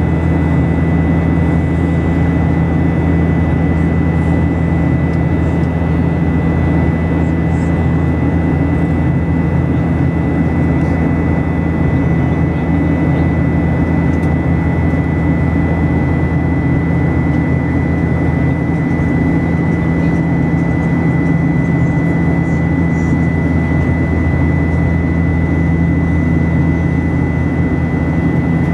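Steady airliner cabin noise in flight: an even drone of engines and airflow, with a thin steady whine high above it.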